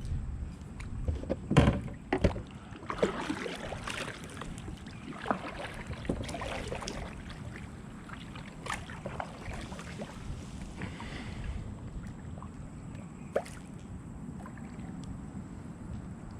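Kayak handling on the water: paddle and gear knocks against the hull and water sounds over a low wind rumble. There are a few loud knocks in the first few seconds and a sharp click later on.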